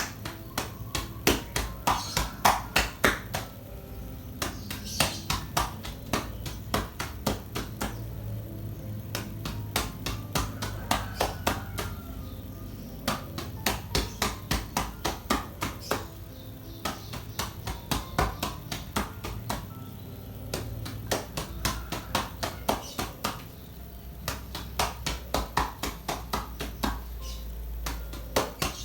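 Chest percussion: cupped hands clapping rhythmically on a patient's back, in bursts of about five strikes a second with short pauses, to loosen sputum lodged in the upper part of the lungs.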